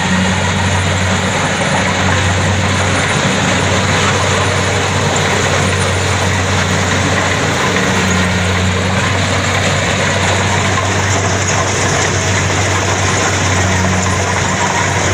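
Kubota DC-70 combine harvester running steadily at working speed: a constant low engine hum under a loud, even clatter and rush of machinery.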